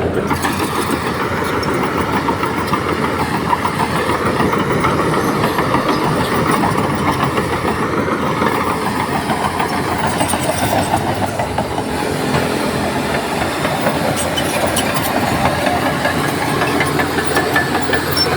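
Crawler bulldozer working: the diesel engine runs steadily under load, with a continuous clatter of steel tracks.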